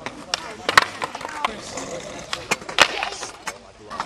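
Skateboard on asphalt: a string of sharp wooden clacks as the board's tail snaps and the board lands during flat-ground tricks, about six loud hits in four seconds, with the loudest near the start and about three seconds in.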